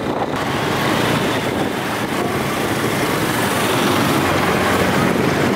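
Steady rushing road and wind noise of a motorcycle ride through town traffic, with the engine running underneath; it gets louder about half a second in.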